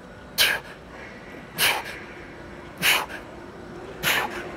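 A man's short, forceful breaths through the mouth, four of them at a steady pace of about one every 1.2 seconds, one with each rep of a seated cable row.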